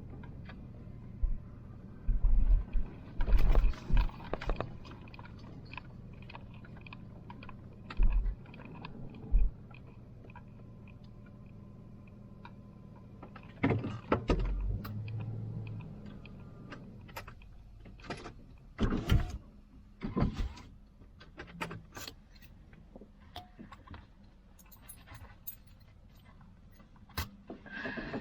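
Inside a van's cabin, a steady low engine and road hum runs under scattered knocks, clicks and rattles. The hum drops away after about the middle, leaving sharper clicks and rattles.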